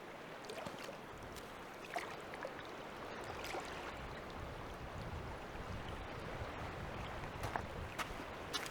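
Quiet lake water lapping against the shore, with a few faint clicks and knocks.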